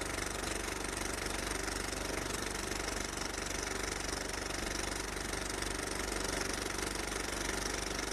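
A small motor running steadily with a fast, even pulse.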